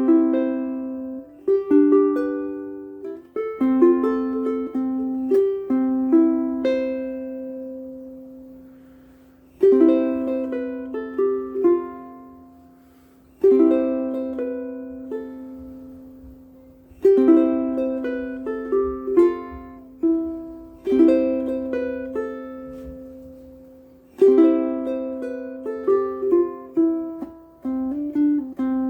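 Martin IZ edition tenor ukulele strung with aNueNue Green Planet strings, played solo: chords struck every few seconds and left to ring and fade, with single melody notes picked in between.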